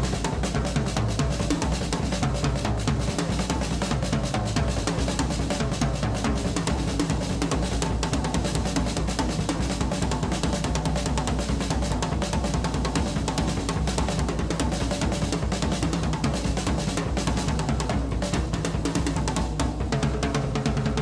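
Music with a continuous drum-kit beat, bass drum and snare, over a steady low bass.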